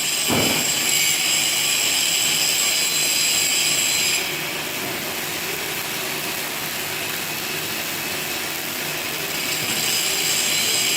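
Steady, loud machinery noise with a high hiss and whine. The high part drops away about four seconds in and returns near the end.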